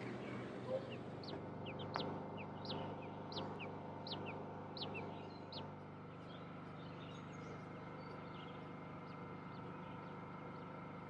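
A bird calling: a run of short, high, downward-sliding notes, about three every two seconds, that stops about halfway through. Under it runs a faint, low, steady hum.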